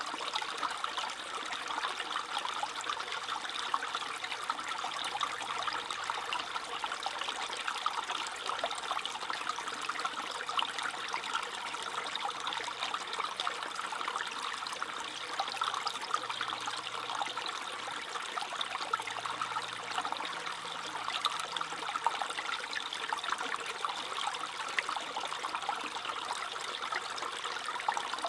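Small stream trickling and babbling steadily over stones.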